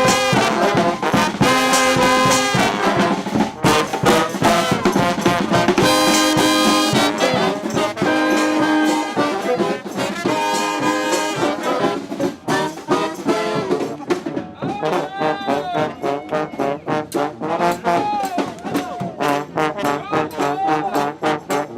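Street brass band playing, trombones and trumpets over drums in full ensemble. About two-thirds of the way in the horns thin out and the drums' rapid strokes come to the fore under a lighter horn line.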